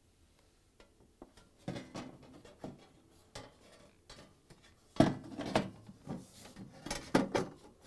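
Refrigerator's sheet-metal rear access panel being fitted by hand: irregular clanks, knocks and rattles of the metal cover against the cabinet. The loudest knock comes about five seconds in, with a quick cluster of hits near the end.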